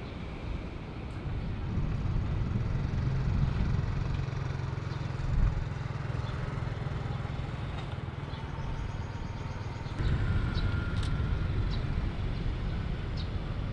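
Low, steady rumble of jet airliner engines on the airfield. About ten seconds in it changes to a taxiing Boeing 787's engines, with a faint steady whine over the rumble.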